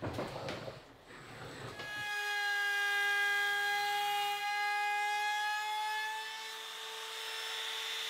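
A compact trim router with a flush-trim bit runs at a steady high whine as it trims the overhanging edge of an acrylic sheet glued to plywood. It starts about two seconds in, after a short stretch of rubbing as the acrylic is pressed down by hand.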